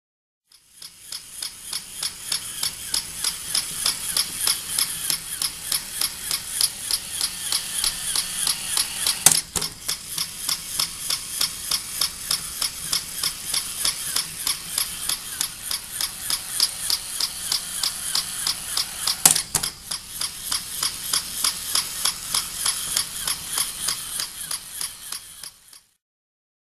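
Battery-powered walking toy dog's small electric motor and plastic gears running, a rapid mechanical clatter of about three clicks a second. Two single sharp knocks stand out, about 9 and 19 seconds in.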